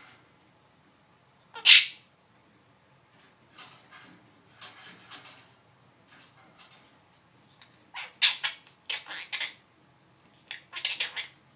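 Pet bird calling: one loud, sharp squawk about a second and a half in, then two bursts of quick, shrill calls near the end.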